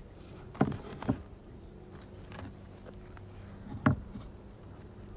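Three sharp knocks from handling on a wooden cutting board: two close together near the start, a louder one near four seconds. A faint steady hum runs underneath.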